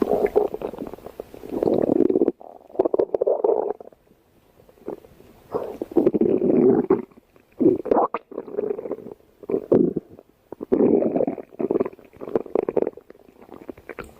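A human stomach growling: a run of rumbles in irregular bursts of about one to two seconds each, with short gaps between them, starting suddenly out of silence.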